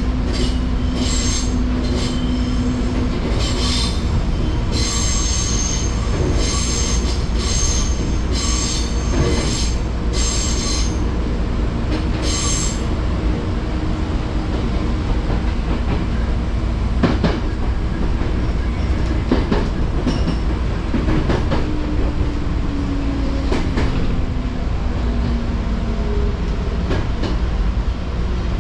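Fujikyuko Line electric train running, heard from on board as a steady low rumble. For the first half, wheels squeal high again and again, as on a curve. Later come a few sharp knocks from the rails and a low whine that falls slowly in pitch.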